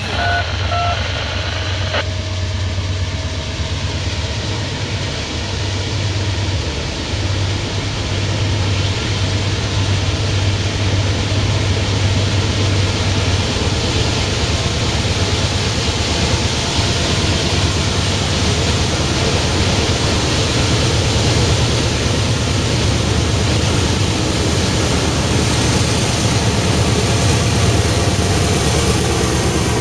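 Norfolk Southern freight train led by several GE wide-cab diesel locomotives approaching and drawing alongside: a steady, deep diesel engine drone that grows gradually louder as the train nears.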